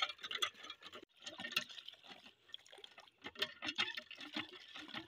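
Hand pump being worked, with irregular faint clicks and knocks from the handle and plunger. The pump draws no water because its valve has worn out.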